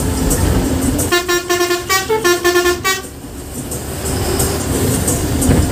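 A bus horn sounds a quick run of pulsed notes that change pitch, for about two seconds starting about a second in. The bus engine rumbles low underneath.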